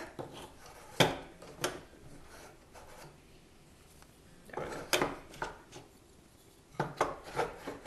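The sandpaper-faced fault model being set in place and adjusted on the earthquake machine's wooden platform: sharp knocks and light rubbing, in groups about one second, five seconds and seven seconds in.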